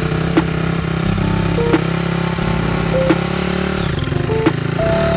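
Background music with held synth notes stepping in pitch and a sharp beat about every second and a half, over the low, steady running of a Honda dirt bike's engine.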